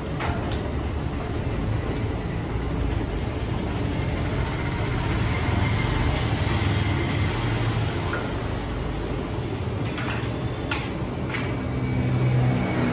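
Metal ladles clinking against iron kadhais: a couple of sharp clinks near the start and three or four more near the end, over a steady low rumble.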